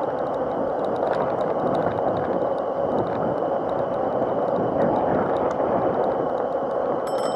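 Razor MX500 electric mini dirt bike riding steadily over paving tiles: a steady rushing noise of tyres and wind with a thin, high, even motor whine. A short sharp click sounds near the end.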